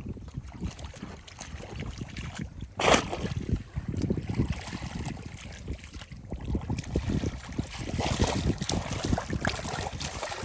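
Shallow field water sloshing and splashing as someone works in it, irregular throughout, with one loud splash about three seconds in.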